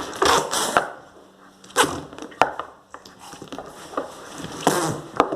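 Slime pressed and pumped in a small pot, making the 'pum' fart noise: trapped air squelches out in a few short bursts with some sharp clicks, irregularly spaced.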